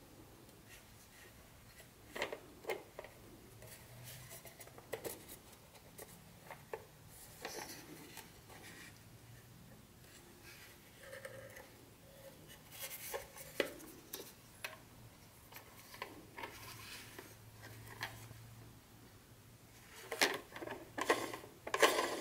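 Gloved hands handling a plastic O-gauge model train wagon: scattered light clicks and short rubbing sounds as it is turned over, with a cluster of louder clicks and rustles near the end.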